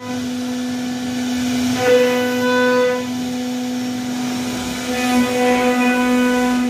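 CNC router spindle running with a steady whine while carving wood; its upper overtones swell twice, about two and five seconds in.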